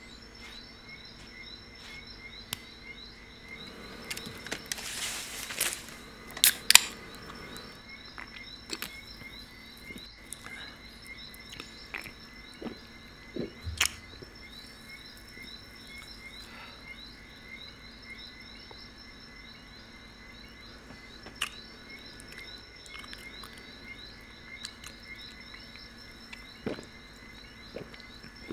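Steady chirping night chorus with a repeating trill, broken by scattered clicks and knocks: a noisy rustle about four seconds in, then a pair of sharp clicks that are the loudest sounds, and a click with a low thump about halfway through.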